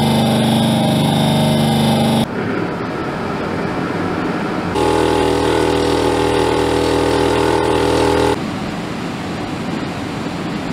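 A run of workshop machines, each heard briefly. First the motor of a wheel-straightening stand runs with a steady hum until about two seconds in, followed by a quieter stretch. From about five seconds a Gigant piston air compressor runs loud and steady. Near the end it drops to the quieter, even hum of a Zanussi portable air conditioner.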